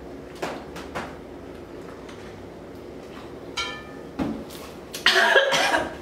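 A woman gulping carbonated seltzer water from a plastic bottle, with a couple of swallows, a dull knock as the bottle goes down on the table, then a loud, rough cough about five seconds in after chugging the fizzy water.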